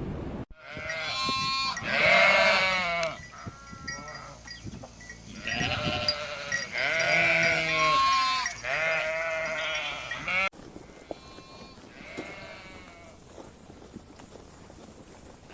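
Sheep bleating: a series of loud, quavering bleats, several overlapping, then after an abrupt cut about ten seconds in, fainter bleats.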